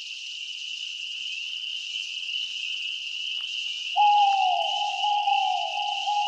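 Title-sequence soundtrack: a steady high-pitched insect-like buzz, joined about four seconds in by a louder held tone with a falling sweep that repeats about once a second.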